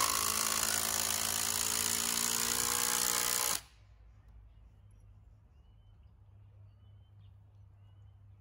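Cordless drill running in one steady burst of about three and a half seconds as it drives into a timber frame post, then stopping abruptly.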